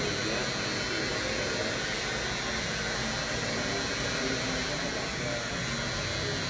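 Steady whir of a barber's electric air-blowing motor running continuously, with a thin high whine over it.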